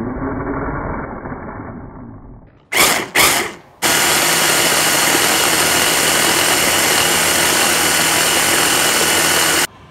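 Electric blender puréeing lemons with sugar. The motor runs and fades over the first couple of seconds, gives two short pulses about three seconds in, then runs steadily at full speed for about six seconds before cutting off suddenly near the end.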